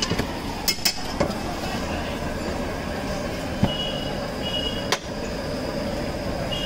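Busy street ambience: a steady din of traffic with a few sharp clinks and three short high beeps in the second half.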